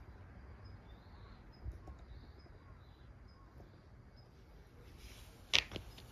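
Quiet outdoor ambience with faint, short high-pitched chirps. About five and a half seconds in comes one sharp click, the loudest sound, followed by a couple of lighter clicks.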